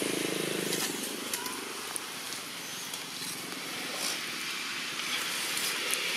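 A motor vehicle's engine hum that fades away about a second in, leaving steady outdoor background noise with a few faint clicks.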